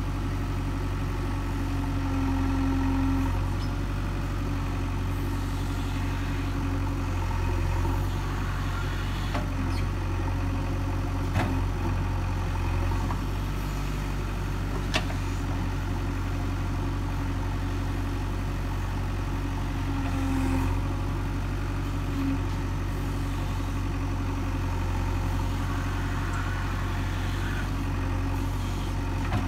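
JCB 3DX backhoe loader's diesel engine running steadily while the backhoe arm digs, with a hum that comes and goes in short stretches as the hydraulics work. There are two sharp clanks, about 11 and 15 seconds in.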